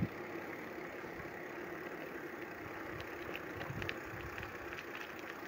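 Bicycle rolling along a dirt trail: steady tyre and drivetrain noise with a few light clicks and rattles.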